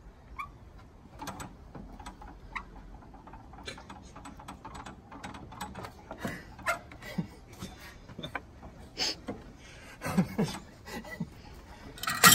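Irregular metal clicks and knocks as a Detroit Diesel 8V71 engine is worked loose with a pry bar and drawn on a cable come-along, with a louder burst of scraping noise near the end.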